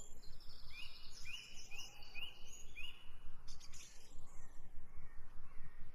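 Metal spoon stirring and scraping frying onion-tomato masala in a large aluminium pot. A bird chirps a quick run of short, repeated notes in the background about a second in.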